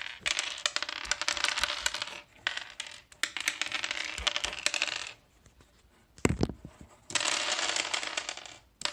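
Small loose parts of a partly dismantled keyboard clattering and rattling in three long stretches as it is handled and flipped over, with one sharp thump about six seconds in.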